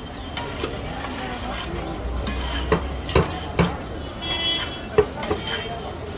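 Pav bhaji being mashed with a metal potato masher on a large flat griddle (tawa): steady scraping and stirring through the vegetables, with several sharp metal-on-metal knocks in the second half.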